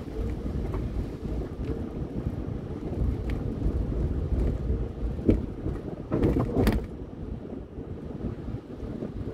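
Car driving slowly, heard from inside the cabin: a steady low rumble of engine and tyres with wind on the microphone, a few light clicks, and a brief louder rustling burst a little past the middle.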